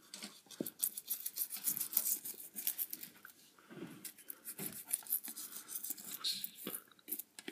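Irregular small scratches, rubs and clicks as a wet Russian tortoise is handled and rubbed in a bath tub.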